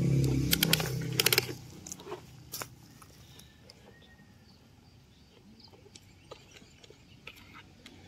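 Plastic toy excavator bucket scraping into dry soil, with scattered small crunches and clicks of dirt and pebbles. A low hum with clicks is heard over the first second and a half, then stops, and the crunching goes on quietly.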